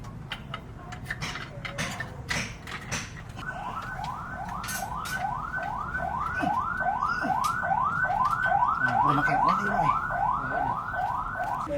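An electronic warning tone like an alarm or siren, sweeping upward over and over at about two and a half sweeps a second, starting about three and a half seconds in. Before it come scattered sharp knocks.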